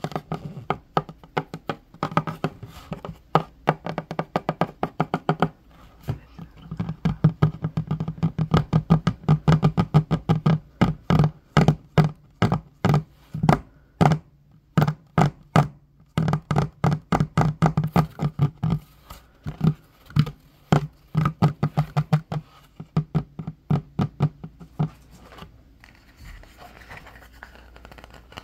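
Fingers drumming rapidly on a wooden tabletop, many quick taps in flurries with a low, hollow ring from the wood. The tapping stops near the end.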